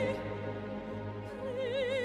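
Operatic-style music: a voice holds notes with a wide, even vibrato over steady sustained orchestral chords. The vibrato line drops out just after the start and comes back about a second and a half in.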